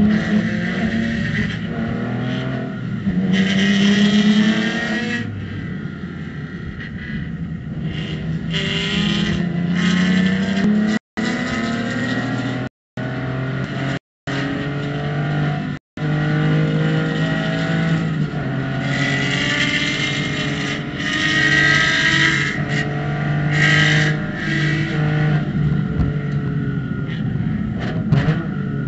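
Porsche flat-six race engine heard inside the cockpit, pulling hard under acceleration, its pitch climbing and dropping back with gear changes and lifts through the corners. The sound cuts out completely for brief moments four times in the middle.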